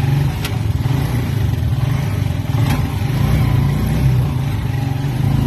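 Motorcycle engine of a Philippine tricycle (motorcycle with sidecar) running steadily at low speed.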